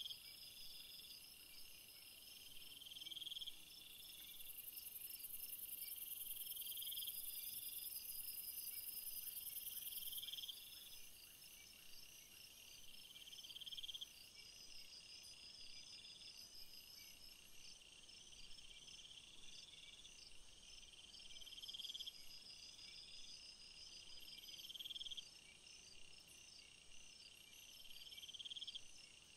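Insects calling: a steady high trill, with a buzzy call that swells and stops about every two seconds, and a louder high hiss from about four to ten seconds in.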